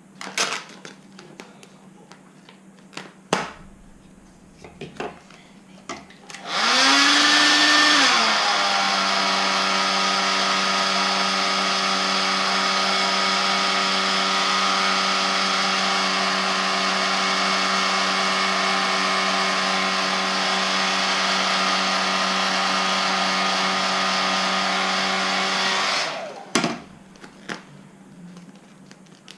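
Electric heat gun blowing for about twenty seconds while heating vinyl wrap film. Its motor spins up with a brief rise in pitch, then runs at a steady pitch until it is switched off. There are a few light handling clicks before and after.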